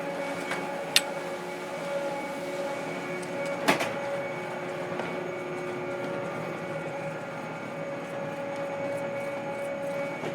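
Fixed-grip ski chairlift running at the loading station: a steady machinery hum with several even tones, broken by two sharp clanks, one about a second in and a louder one a little before four seconds in.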